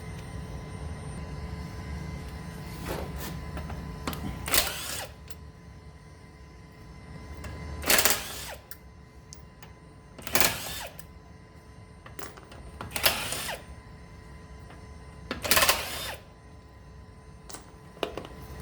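Ratchet wrench with a 17 mm socket clicking in five short bursts, about two and a half seconds apart, as wheel bolts are wound out. A steady low hum runs underneath.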